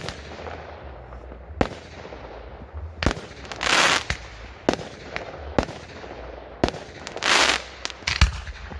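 Fireworks display: about seven sharp bangs spaced a second or so apart, two of them close together near the end, with two longer hissing, crackling bursts, one near the middle and one toward the end.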